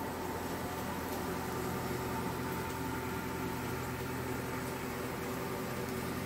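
Steady low hum with a faint hiss, holding one even level and pitch throughout.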